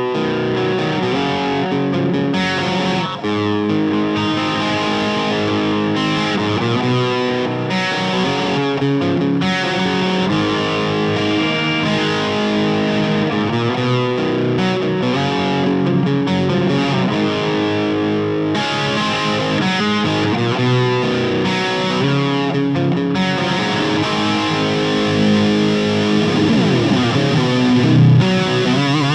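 Distorted electric guitar, a Gibson Les Paul Goldtop with Celentano pickups, playing chords and held notes through an effects unit. Notes glide in pitch near the end.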